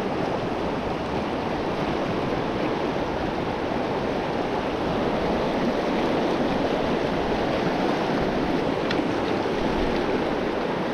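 Steady rushing of a river's flowing current.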